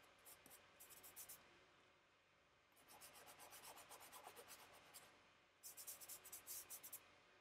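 Faint scratchy strokes of a small charcoal block rubbing back and forth on sketchbook paper, shading in a dark area. The strokes come in three short runs with brief pauses between them.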